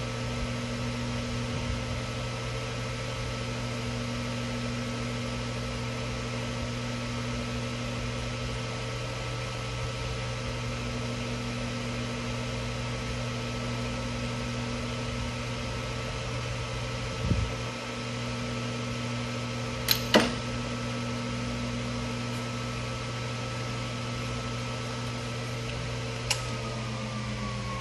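Sharp LMV-42 vertical milling machine head running steadily with the quill power down-feed engaged: a constant motor hum with a steady whine. A dull knock comes about two-thirds of the way in, then two sharp clicks, and near the end a click after which the whine drops in pitch as the feed or spindle is disengaged.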